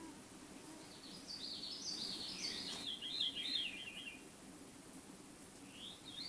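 Veery singing its haunting song: one spiralling phrase about a second in that steps down in pitch over about three seconds, and another phrase starting near the end.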